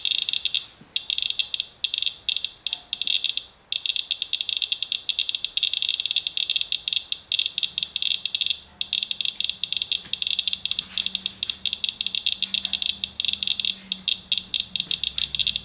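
Radalert Inspector Geiger counter chirping rapidly, a high-pitched chirp for each count. The chirps come faster after the first few seconds as the reading climbs on a paper-towel sample of drizzle from a truck windshield, which registers well above background radiation.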